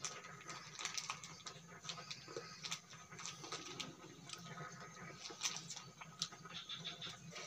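Small irregular clicks and light scrapes of a knife peeling and cutting bananas by hand, several a second, with a faint steady high tone underneath.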